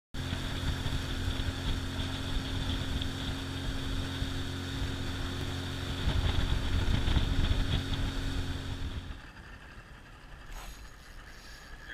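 Small boat's outboard motor running steadily under way, getting louder for a stretch in the middle. About nine seconds in it gives way to a much quieter, even hiss.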